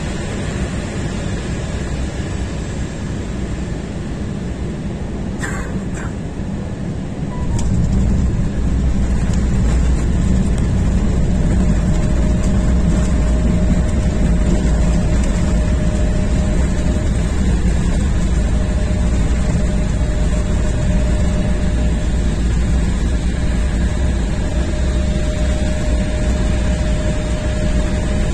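Airliner cabin noise during landing: two short thumps about five and a half and six seconds in as the wheels touch down. From about seven and a half seconds a louder, deeper rumble takes over as the plane rolls out along the runway, with a steady whine joining from about twelve seconds.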